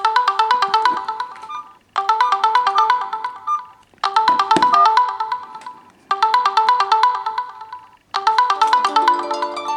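Mobile phone ringtone: a quick run of melodic notes repeated about every two seconds, five times. Near the end a second, lower tone joins in over it.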